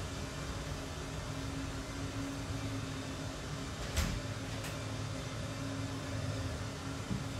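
A steady low machine hum with a sharp click about four seconds in and a fainter click just after.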